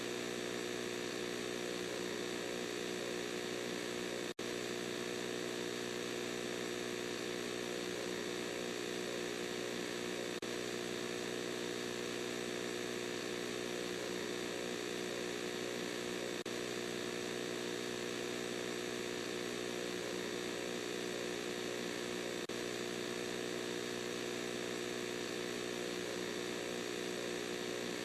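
Steady electronic droning buzz, one unchanging pitch with many overtones, that cuts out for a split second about four seconds in.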